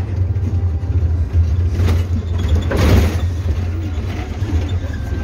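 Intercity bus driving at night, heard from inside the cabin: a steady low engine and road drone, with a short burst of hiss about two to three seconds in.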